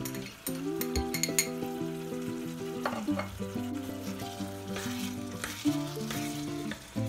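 Background music with steady chords changing every second or so, over minced beef and chopped green pepper frying in a pan and being stirred with a wooden spoon. A few sharp clinks of small glass spice bowls in the first second and a half.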